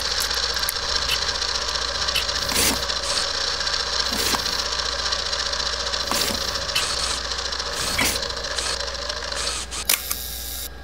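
Film projector sound effect: a steady mechanical clatter and whir, with a sharper swishing sweep about every two seconds.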